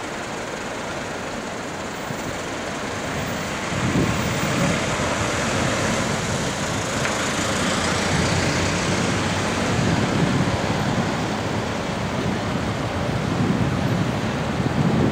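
Steady city traffic noise, a rushing hum that grows louder about four seconds in.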